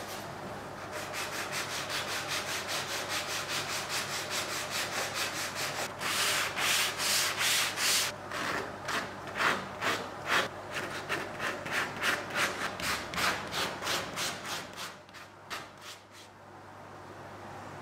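Hand sanding the edges of a woodworking vise's jaw facing with a sanding sponge: quick back-and-forth rubbing strokes, about three a second, loudest about a third of the way in. The strokes die away near the end, leaving faint room tone.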